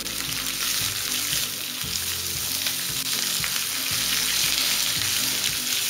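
Shredded cabbage and grated carrot sizzling in hot oil in a non-stick pan, stirred and tossed with a wooden spatula. The sizzle is a steady hiss, kept gentle over a very low flame.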